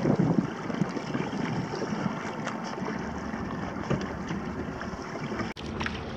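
Water splashing and lapping along the hull of a Hobie sailing kayak under way, with wind buffeting the microphone. The sound breaks off for an instant about five and a half seconds in.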